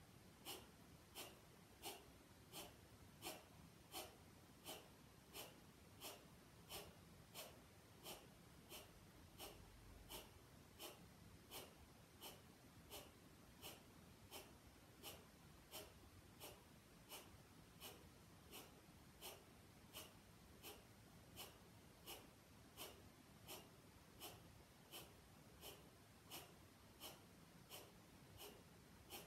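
Kapalbhati pranayama: a long, even run of short, forceful exhalations through the nose, about three every two seconds. Each is a faint, sharp puff of breath, and the in-breath comes on its own and unheard in between.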